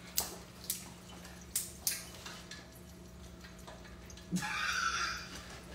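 Kitchen handling sounds: four light clicks and knocks in the first two seconds over a steady low hum, then a short hiss about four seconds in.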